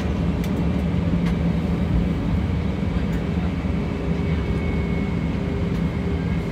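Steady cabin drone of an Airbus A320-232 taxiing, its IAE V2500 turbofans at low taxi power, with a faint steady whine above the low hum.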